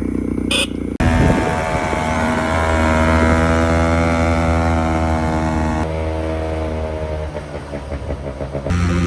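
Honda Gyro X's 50cc two-stroke engine running, with its pitch rising as it is revved and then holding steady; the sound changes abruptly about a second in and again near the end.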